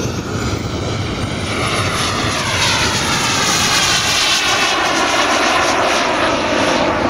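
Single model jet turbine (a B300F of 320 N thrust) powering a 1/6-scale English Electric Lightning model in flight: a high whine over a rushing jet roar. It grows louder about two seconds in as the model passes close and climbs away, with a sweeping, swishing tone as it goes by.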